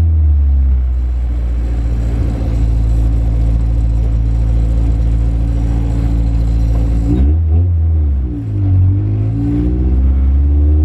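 Manual-transmission car's engine and road noise heard from inside the cabin while driving: a steady drone for about seven seconds, then the engine pitch swings up and down with a brief drop in level around eight seconds in at a gear change, and climbs again as the car accelerates.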